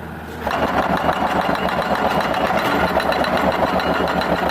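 Hydraulic breaker hammer on a Kato HD700 excavator starting up about half a second in and pounding in a rapid, steady rhythm over the excavator's running engine.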